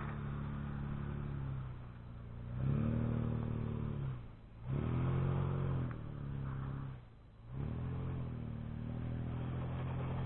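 Mitsubishi Montero SR's V6 engine revving under load in repeated surges, the pitch climbing and dropping back, with brief let-offs about four and seven seconds in.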